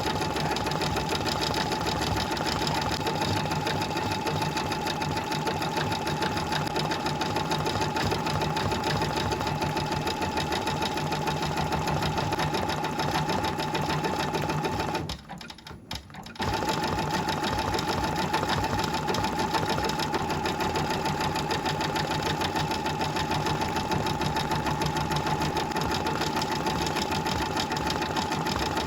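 Brother VR embroidery machine stitching at speed with a steady, fast rattle. It stops for about a second and a half about halfway through, then starts again.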